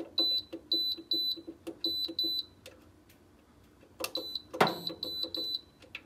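Dreo DR-HSH005 radiator heater's control panel beeping as its buttons are pressed: a run of short, high beeps, one per press, with soft button clicks. The beeps come in two runs of about six each, with a pause of about a second and a half between them.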